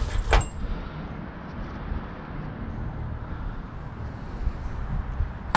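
Low, fluctuating background rumble of outdoor noise, with one sharp click just after the start.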